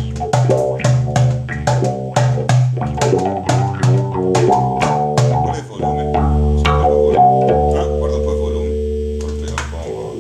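Instrumental music with plucked guitar notes over a bass line, ending on a held chord that rings out and fades at the end.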